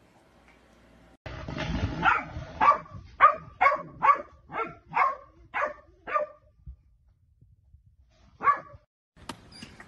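Golden retriever barking: a quick series of about nine short barks about half a second apart, then a single bark near the end.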